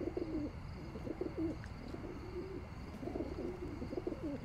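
Birds cooing: low, wavering coos overlapping one another.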